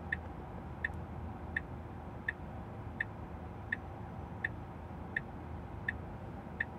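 Tesla Model 3's turn-signal indicator ticking steadily, about one and a half ticks a second, over a low hum of road noise inside the cabin.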